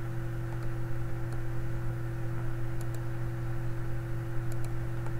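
Steady low electrical hum with a few faint computer-mouse clicks.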